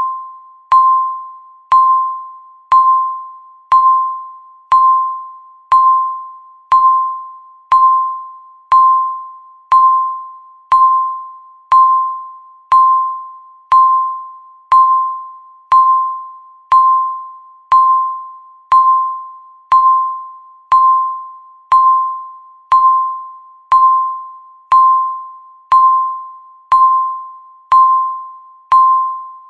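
Countdown timer beeping once a second: the same single mid-pitched electronic beep each time, starting sharply and fading out before the next one.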